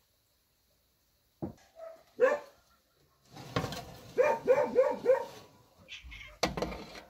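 An animal calling in short repeated calls, some in quick runs of about three a second.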